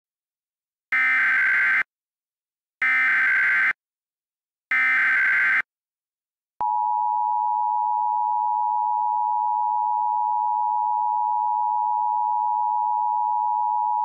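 Emergency Alert System SAME header: three one-second bursts of buzzing digital data tones, encoding a Child Abduction Emergency (AMBER alert). Then, about six and a half seconds in, the EAS two-tone attention signal starts and holds steady.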